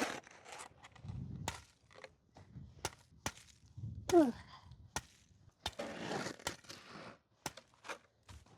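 Irregular knocks, thuds and scrapes of snow being cleared, with a brief falling tone about four seconds in.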